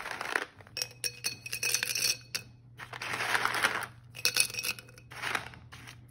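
Dried, paint-coated bow-tie (farfalle) pasta dropped by hand into a glass jar, clattering against the glass and each other in several bursts of clinks.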